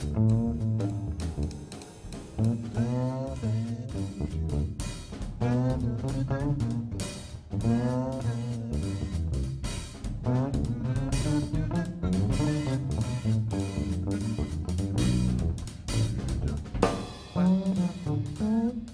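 Jazz quartet playing live: electric bass lines with drum kit and cymbals, and guitar in the mix.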